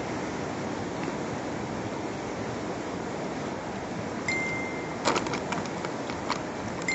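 A steady rushing outdoor noise, with a short high electronic beep about four seconds in and another at the very end. A quick run of sharp clicks and ticks follows the first beep.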